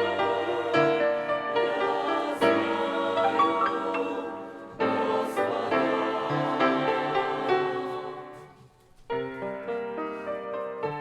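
Mixed church choir singing a hymn in sustained chords. The singing dies away briefly near the end, and a keyboard passage of separate notes starts.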